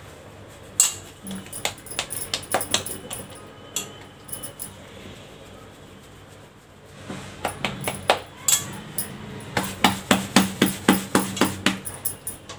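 Hands kneading bhakri dough in a stainless steel plate: scattered clicks and knocks of fingers on the metal, then from about seven seconds in a quick run of pats, about three a second, growing louder as the dough is pressed and slapped against the plate.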